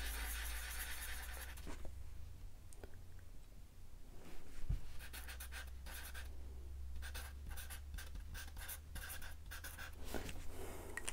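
Fine-point Sharpie permanent marker writing on paper: the felt tip scratches steadily while a dot is coloured in, then in a run of short strokes as a word is written out.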